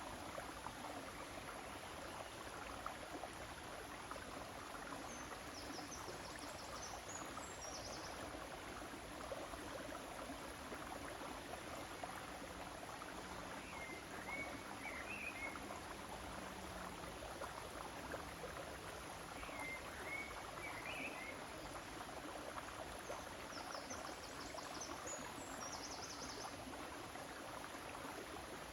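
River water flowing with a steady, even rush. A few short high chirps, likely small birds, come through in small clusters several times.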